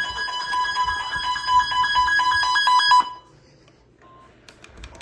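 Emergency Alert System warning tones: a loud electronic alert of steady pitches near 1 kHz, pulsing rapidly, cuts off about three seconds in. A single short beep follows about a second later, then a run of faint, evenly spaced ticks begins near the end.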